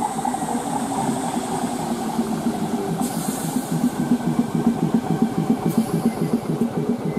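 Class 315 electric multiple unit running past close by, a dense rumble of wheels on the rails with a fast, uneven pulsing beat that grows stronger. Two brief hisses come about three and six seconds in.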